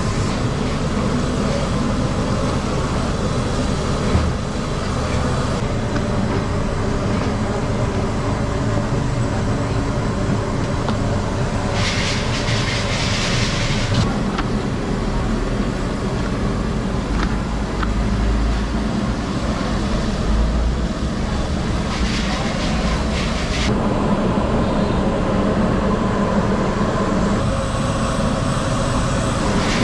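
Steady, loud low rumble of high-pressure gas burners under woks of deep-frying oil, with the oil sizzling. Two brief louder stretches of hiss come about twelve and twenty-two seconds in.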